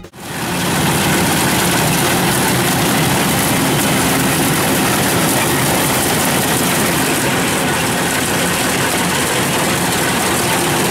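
Kubota rice combine harvester running steadily as it cuts rice, its engine and machinery making a dense, even mechanical noise.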